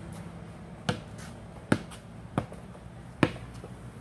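Basketball being dribbled on a concrete slab: four bounces roughly three-quarters of a second apart.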